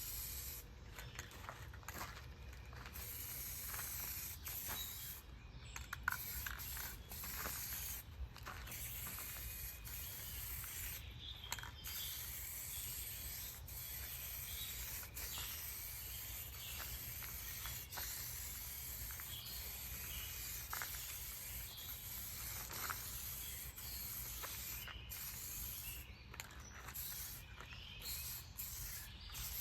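Aerosol spray can hissing in long passes with short breaks, as paint is sprayed onto car window trim. A few faint clicks come between the passes.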